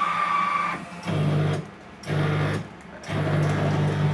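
Godrej coffee vending machine dispensing after a card is accepted: a beep lasting under a second, then the machine's motor hums in two short on-off bursts and runs steadily from about three seconds in.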